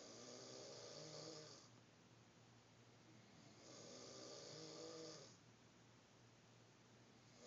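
Snoring: two long snores about three and a half seconds apart, each lasting under two seconds, a low buzzing tone with a breathy hiss, with a third starting at the very end.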